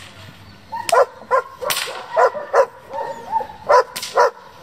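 German Shepherd barking hard and repeatedly, about eight barks at roughly two a second, during bite-work training. Two sharp cracks from the helper's stick come about a second in and again near the end.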